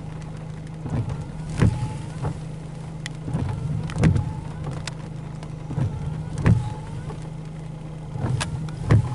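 Car windshield wipers sweeping about every two and a half seconds, each pass ending in a thump with a short squeak, over the steady hum of the car.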